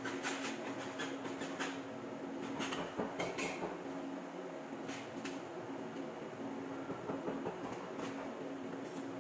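Scattered light clicks and knocks of PVC drain pipe and fittings being handled and pushed together, busiest in the first few seconds, over a steady low hum.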